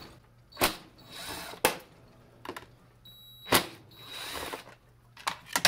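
Cordless impact driver running in two short bursts of about a second each, backing out the screws of a chainsaw's air filter housing cover. Sharp clicks come as each run starts and stops, and a few more clicks follow near the end.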